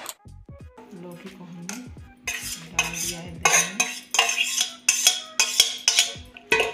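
A steel spoon scraping cooked bottle gourd out of a stainless-steel pot into a steel bowl of curd. From about two seconds in comes a quick run of about a dozen metal scrapes and clinks.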